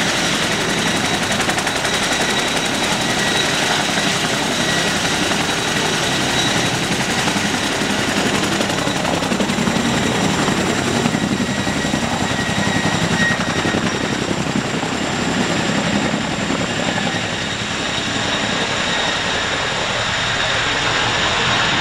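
Boeing CH-47 Chinook tandem-rotor helicopter lifting off and flying low: a loud, steady fast rotor beat under the high whine of its twin turboshaft engines.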